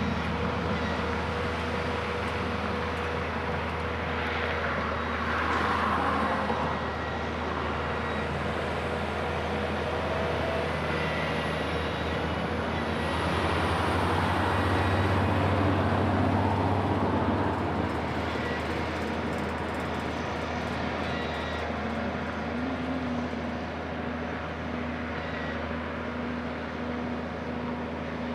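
Caterpillar diesel engines of a heavy-haul tractor and a rear pusher unit pulling a superload, a steady low drone that swells louder twice, most of all about halfway through.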